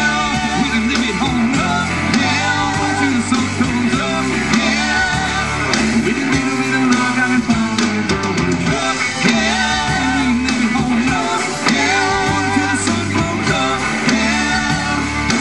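A live country-rock band playing, with electric guitar, electric bass and drums behind a male lead vocal, loud and continuous.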